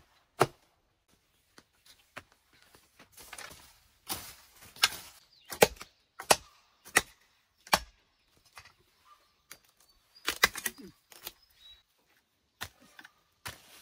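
Scattered sharp knocks and clicks at an irregular pace, with a few short rustling noises between them.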